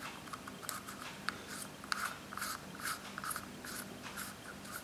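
Enlarger lens being screwed by hand into a metal helicoid focusing ring: faint, irregular scratchy ticks and rasps of the threads and fingers gripping the knurled rings, several a second.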